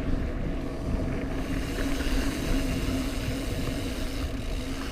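Mountain bike rolling along a dirt trail: steady tyre and drivetrain noise with a low hum, and a few light clicks.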